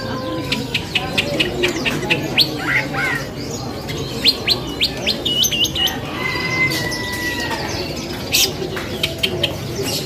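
Caged songbirds singing: a fast run of sharp chirps and short rising notes, with one longer level whistle about six seconds in, over a low steady hubbub.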